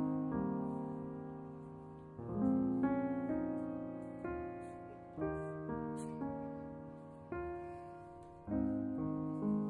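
Slow, soft piano music: chords struck every second or two that ring and fade away.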